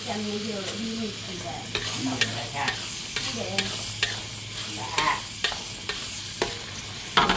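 Food sizzling in a frying pan while a utensil stirs it, with a sharp knock of the utensil against the pan every second or so, the loudest near the end.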